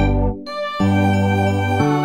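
Background music: the beat drops out briefly about half a second in, then sustained chords come in, changing to a new chord near the end.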